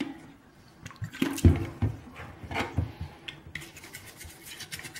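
A few knocks and thumps, then, from a little past halfway, a razor scraper's blade scraping old putty off a wet porcelain sink in rapid, even strokes.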